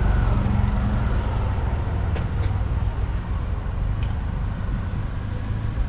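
Road vehicle traffic with a steady, heavy low engine rumble and a few faint ticks.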